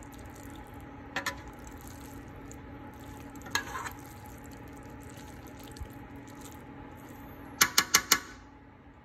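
Metal spoon stirring through cooked rice and ground beef in a pan, clinking against the pan a few times, with a quick run of four sharp clinks near the end. A steady low hum sits under it.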